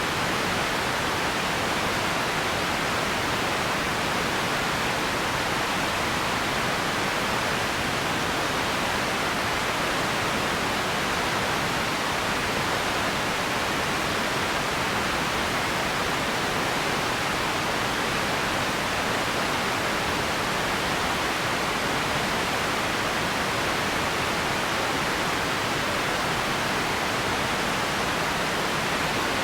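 Empty ambience noise: a steady, even hiss that does not change, strongest in the middle range.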